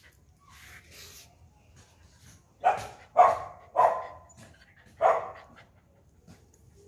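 A dog barking four times: three quick barks about half a second apart, then one more after a short pause.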